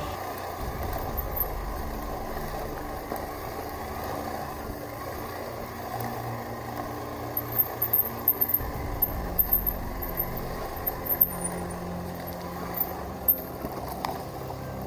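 Hero Xpulse 200 4V's single-cylinder engine running at low speed on a rocky dirt track, with a string of sharp clicks and knocks from about halfway through as the bike rattles over stones.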